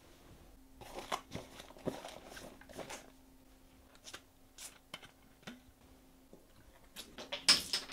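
Light clicks and crinkly rustles of a plastic soda bottle and clothing being handled as it is picked up and drunk from, with a short louder hissing rush near the end.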